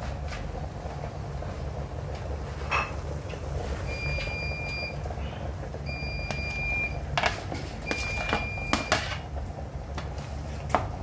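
A metal spoon stirring fried rice in a large metal pot, clinking and knocking against the pot, with louder knocks as a bowl of white rice is tipped in, over a steady low hum. Three electronic beeps, each about a second long, sound about four, six and eight seconds in.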